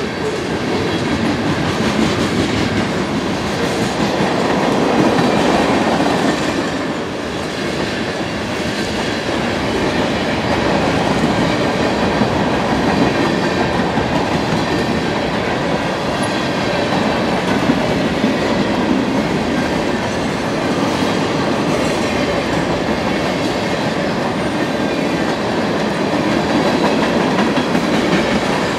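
Freight train cars rolling steadily past at close range: boxcars, then centerbeam flatcars, then tank cars, their wheels clattering continuously over the rails.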